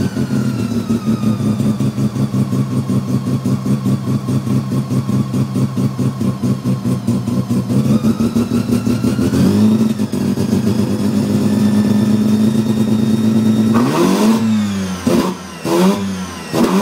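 Mazda 13B bridgeport-ported rotary engine. Its revs fall away to a choppy, pulsing idle, rise to a steady higher speed about halfway through, then are blipped sharply up to around 6,000 rpm several times near the end.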